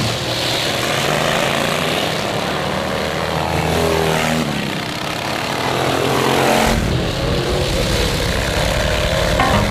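Racing lawnmowers' small V-twin engines running hard at high revs, the pitch gliding up and down as machines pass, around four seconds in and again near seven seconds.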